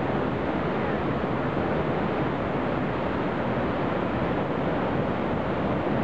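Upper Krimml Waterfall: a large mountain waterfall crashing onto rock in a steady, loud, unbroken rush of water.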